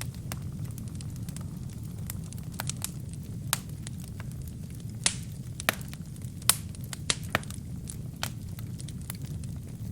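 Wood and kindling burning in a fireplace: a steady low rumble of flames with irregular sharp crackles and pops, a few louder pops around the middle.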